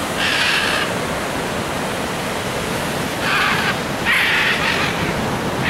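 Ocean surf rushing steadily, with three short, higher hissing bursts about a quarter second, three seconds and four seconds in.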